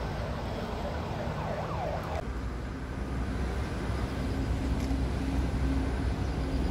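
Outdoor ambience: a steady low rumble of distant road traffic, with a few short sliding tones in the first two seconds.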